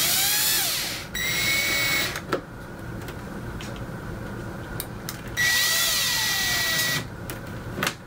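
Ridgid cordless drill/driver driving screws into a plastic ceiling grille cover, in two runs with a few clicks between. The motor's whine rises and falls in pitch, and the first run pauses briefly. The screws are being run in just to snug.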